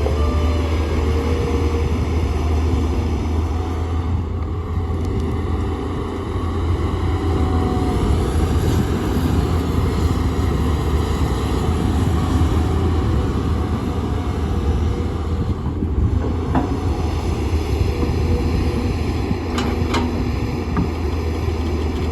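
Heavy excavator diesel engine running steadily under load with a deep, even rumble. A few faint knocks come near the end.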